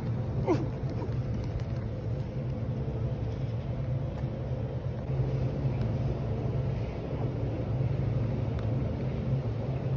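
Steady low mechanical hum of the ventilation and inflation fans of an air-supported sports dome, running at an even level.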